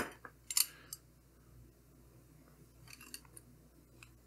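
Quiet clicks and light clacks of a Kershaw Lucha steel-handled balisong being handled: a sharp click about half a second in, then a few small clicks around three seconds in.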